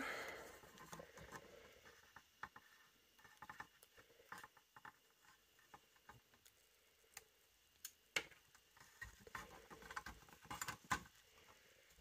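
Faint, scattered clicks and small taps as hands handle the metal carriage and parts of a Hermes 3000 typewriter, a little busier in the last few seconds.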